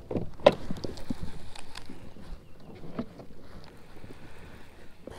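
Clunks and clicks of fishing gear being handled in a plastic kayak, loudest about half a second in, then fainter scattered knocks.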